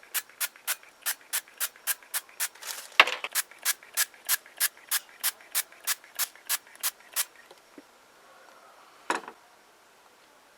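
Quick, evenly spaced scraping strokes, about three a second, stopping a little after seven seconds in. A single longer scrape follows about nine seconds in.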